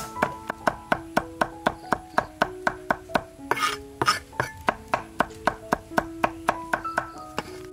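Background music: an instrumental melody over an even beat of about four notes a second. A short scraping noise cuts in about three and a half seconds in.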